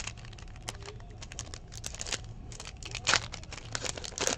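A 2017 Optic football card pack being torn open by hand, its wrapper crinkling and tearing in a run of irregular crackles, loudest about three seconds in and near the end.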